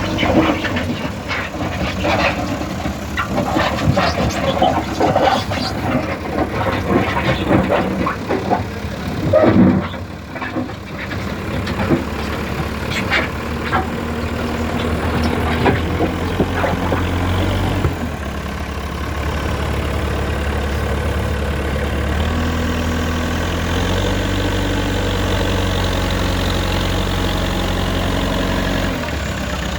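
Backhoe loader's diesel engine running, with many sharp metallic clanks and knocks over it in the first ten seconds or so. After that the engine runs steadily, its speed stepping up and down a few times.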